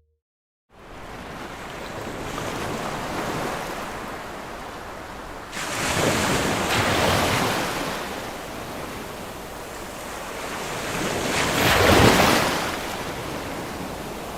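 Ocean waves breaking on a beach: a steady wash of surf that begins after a moment of silence and swells three times, with a wave crashing in suddenly about five and a half seconds in and the loudest one breaking about twelve seconds in.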